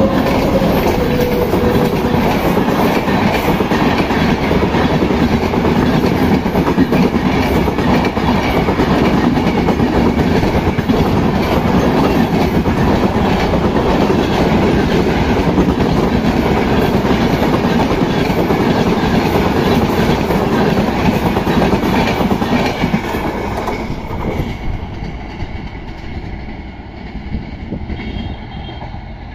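Express train passing close at speed: an electric locomotive followed by a long rake of LHB coaches, the wheels clattering over rail joints amid a steady loud rattle. The noise dies away after about 24 seconds as the last coach goes by.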